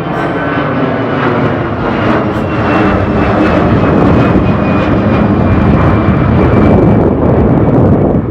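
Airbus A321-211 airliner's CFM56 jet engines at takeoff power: a dense roar with a thin whine that slowly falls in pitch, growing louder over the first few seconds as the aircraft passes.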